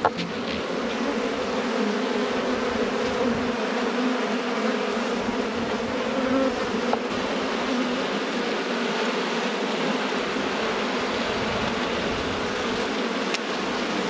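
A colony of honeybees buzzing in a steady, unbroken hum from an opened nuc hive, with frames of bees lifted out close by.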